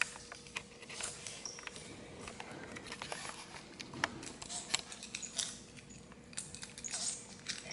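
Scattered light clicks, scratches and small clinks from a young kinkajou in a harness clambering about close to the microphone.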